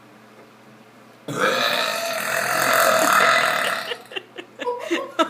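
A deliberate, loud human burp that starts suddenly about a second in and lasts nearly three seconds.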